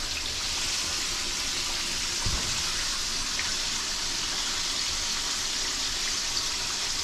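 Battered cobia nuggets deep-frying in hot oil: a steady, even sizzle. A soft low thud about two seconds in.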